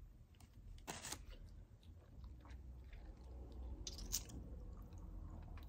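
A person eating chicken wings: picking meat off the bone with the fingers and chewing, with soft mouth clicks and two brief louder crackles, about one and four seconds in.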